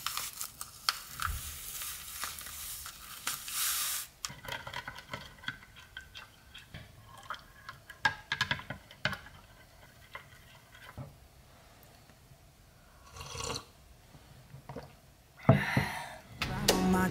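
Instant coffee powder pouring from a stick sachet into water in a glass mug, a steady hiss for about four seconds, then the coffee being stirred, with many small clinks and scrapes against the glass.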